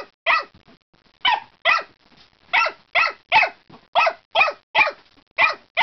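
Pembroke Welsh corgi puppy barking at its bowl of food: about a dozen short, high-pitched yaps in quick runs of two to four, with brief pauses between runs.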